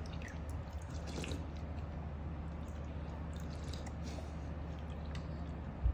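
Faint wet clicks and smacks of a baby eating, over a steady low hum, with one short bump near the end.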